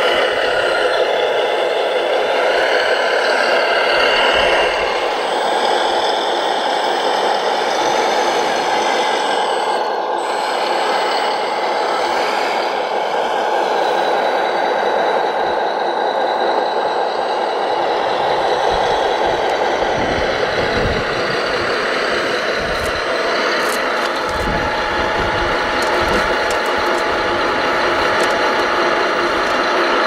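Radio-controlled model wheel loader working in gravel: a steady whine of its motors and hydraulics, with irregular knocks and clatter of stones in the second half.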